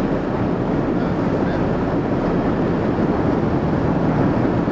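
Steady rumble of a boat engine mixed with wind buffeting the microphone and the wash of water.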